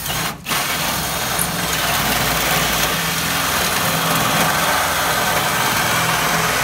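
Cordless drill boring a hole down through an aluminum 3x8 header beam. After a brief stop just after the start, it cuts with a steady, loud noise under load.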